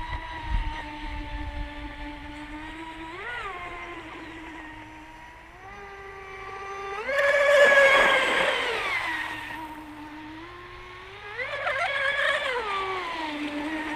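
Delta Force 29 RC boat's Rocket 3674 3050 KV brushless electric motor whining on a cool-down run. Its pitch rises and falls with the throttle, and it is loudest, with a hiss of water, about halfway through.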